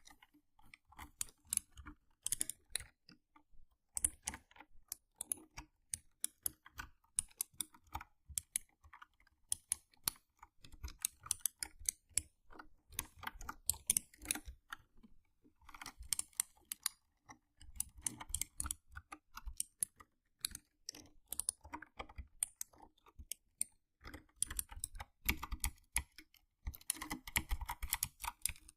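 Mechanical keyboard keys being typed in fast runs of clicks, broken by a couple of brief pauses.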